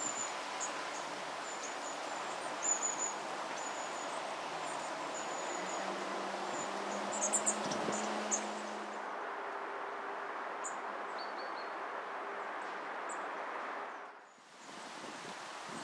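Long-tailed tits calling: many short, thin, very high notes in quick series, thinning out after the first half, over a steady rustling background hiss that briefly drops away near the end.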